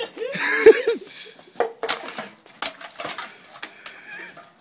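A short vocal outburst, then a run of sharp, irregular clicks from a handheld lighter being struck.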